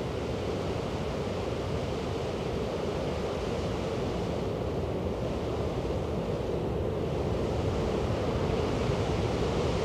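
Steady rushing of river water, a constant, even noise with no rhythm.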